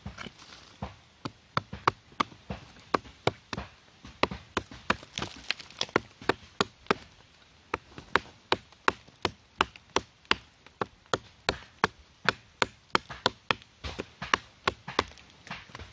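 Machete chopping repeatedly into wood, sharp strikes about two a second.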